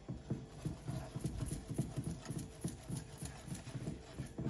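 A silicone whisk beating a thin milk and cornstarch mixture in a nonstick saucepan, making quick, rhythmic taps and splashes as the wires hit the pan.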